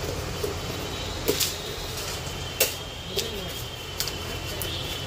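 A blade slitting packing tape on a cardboard box and the cardboard flaps being pulled open: a few short, sharp scrapes and crackles over a steady low hum.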